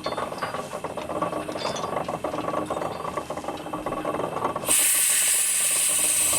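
Fowler Z-series steam ploughing engine at work, its gearing and motion clattering rapidly. About three-quarters of the way in, a loud hiss of steam starts suddenly and keeps going.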